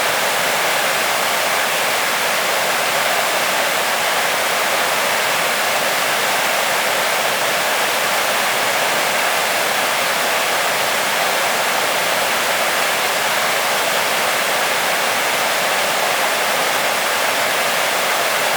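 Waterfall splashing, a steady loud rush of falling water with no change.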